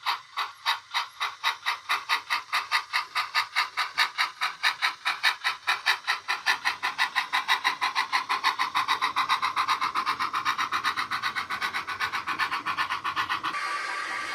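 Model steam locomotive's DCC sound decoder playing exhaust chuffs through its small speaker, the beats quickening from about three a second to a rapid patter as the loco accelerates. Near the end the chuffing stops and gives way to a steady hiss.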